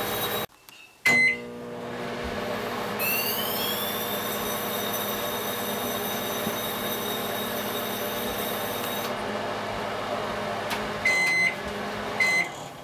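Microwave oven running with a steady hum. About a second in it stops briefly and restarts with a click and a short beep. About 3 s in a high whine rises and holds for several seconds, and two keypad beeps sound near the end.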